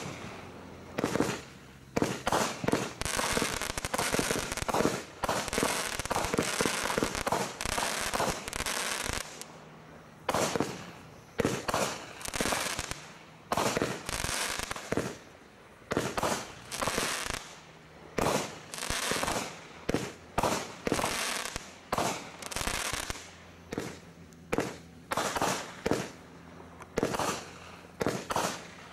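Consumer firework barrages from a Bright Star Strike Force barrage pack firing in sequence: a steady run of sharp shots and bursting breaks, roughly one or two a second, with crackling between them that thickens for several seconds early in the stretch before a brief lull.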